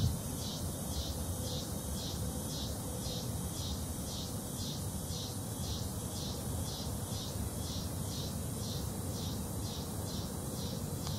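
Insects chirping in an even, high-pitched pulse, about two to three chirps a second, over a steady low rumble.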